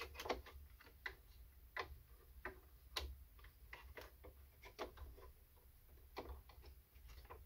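Faint, irregular clicks and light taps as plastic parts, wires and tubing are handled and fitted inside an opened coffee machine's plastic housing.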